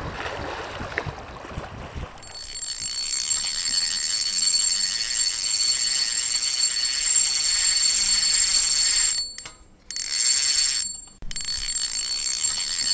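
Wind and lapping water for about two seconds, then a steady high-pitched ringing over a hiss, with two short dropouts near the end.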